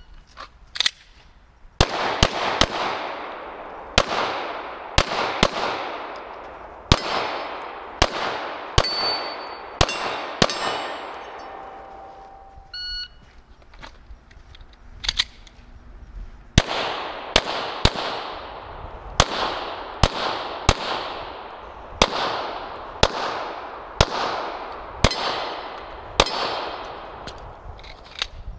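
A string of pistol shots, mostly about a second apart with some quick pairs, each followed by a long echoing tail. Firing pauses for a few seconds around the middle, then resumes.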